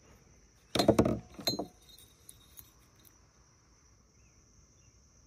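Metal parts of a disassembled diesel vacuum pump clinking and clattering as they are handled, in two short bursts about a second in, followed by a couple of faint ticks.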